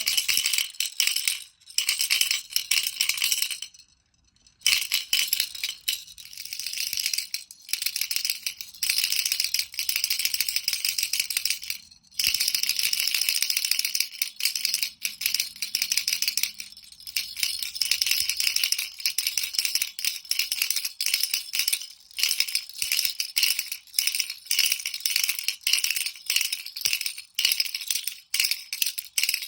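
Baby rattle being shaken continuously, a dense bright rattling with brief pauses about four seconds in and again about twelve seconds in.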